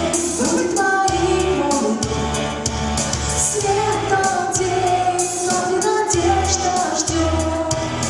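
A female singer singing a pop song over an instrumental accompaniment with a pulsing bass beat.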